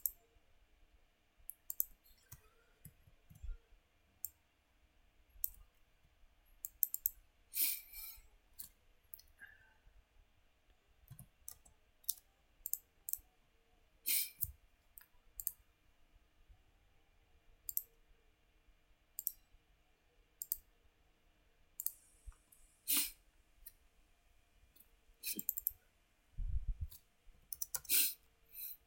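Computer mouse buttons clicking at irregular intervals, many sharp short clicks with a few louder ones, over a faint steady hum. A dull low thump near the end.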